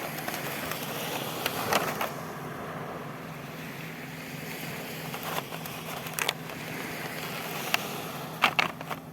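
Toy packaging being opened: a few sharp clicks and crackles, the loudest cluster near the end, over a steady background hum.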